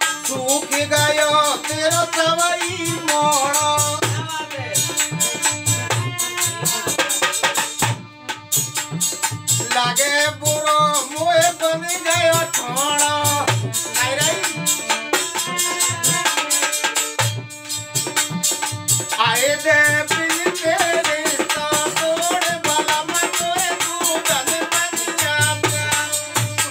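Rasiya folk song: a man singing over harmonium, with a dholak drum beating out the rhythm and a chimta's jingling tongs. The singing breaks off briefly twice while the drum and jingles carry on.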